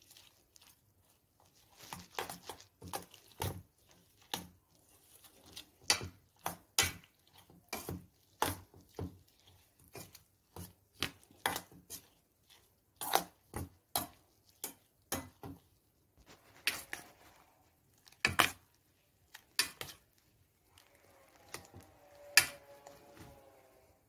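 Metal spoon beating raw eggs and chopped vegetables in a stainless steel bowl, striking the bowl in sharp, irregular clinks about one or two a second. A quieter steady sound joins in for the last few seconds.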